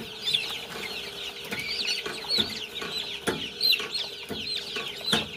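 A crowd of young chicks peeping continuously, many short high chirps overlapping, with sharp clicks now and then and a faint steady hum underneath.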